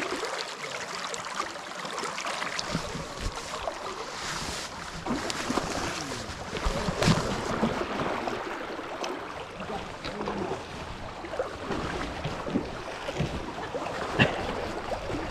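River current rushing past the wading angler's legs, with wind buffeting the microphone and a few sharper splashes from a hooked sockeye salmon thrashing at the surface.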